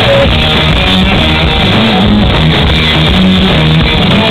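Rock band playing live and loud: electric guitar, bass and drums.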